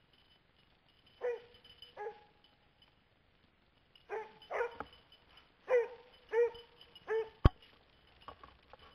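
A hound barking seven or so times in short calls, some trailing into a brief held note. A single sharp knock near the end is the loudest sound.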